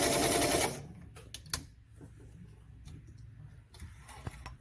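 Singer 348 sewing machine stitching zigzag through several layers of denim with its upper thread tension eased, stopping suddenly under a second in. A few light mechanical clicks follow as the machine is handled.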